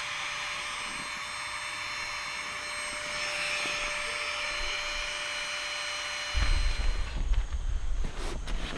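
Steady rushing outdoor ambience, likely a shallow river, with several thin high steady tones through it. About six seconds in, a low rumble starts, followed by a few knocks like footsteps or handling.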